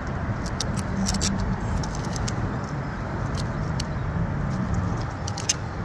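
Steady low outdoor rumble, with scattered light clicks and taps throughout.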